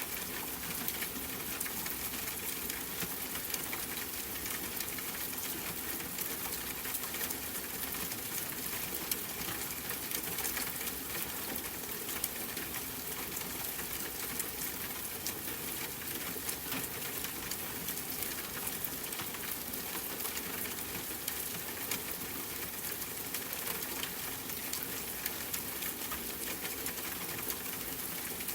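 Steady rain with a dense patter of small drops, a soft, even hiss sprinkled with tiny ticks.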